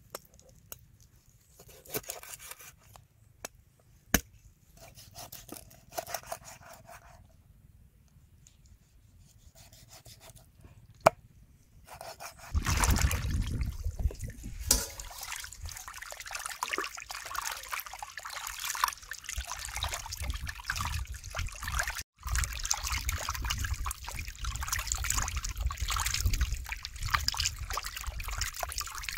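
Hands washing cut catfish pieces in water in a metal basin: continuous sloshing and splashing that starts about twelve seconds in. Before that the sound is faint, with a few sharp clicks.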